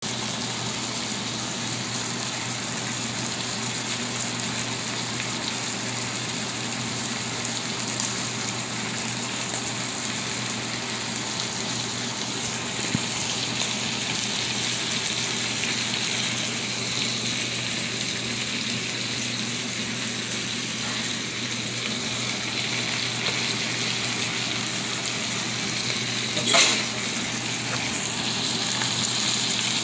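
Steak strips and vegetables sizzling steadily in a cast iron skillet, with one short, louder noise about three-quarters of the way in.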